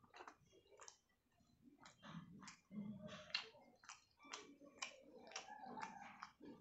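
A person eating close to the microphone: soft, irregular clicks and smacks of chewing, a few each second.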